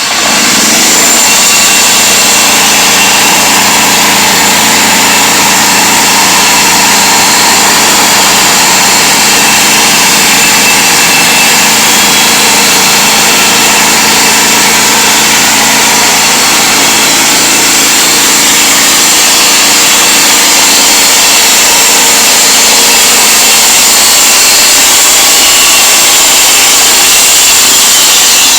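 Engine of a homemade mobile sawmill speeding up from idle and running loud and steady at high speed, with a thin high whine over the engine noise.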